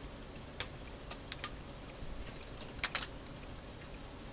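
Small plastic model-kit parts being handled and pressed together: a scatter of sharp plastic clicks and taps, with a close pair near the end.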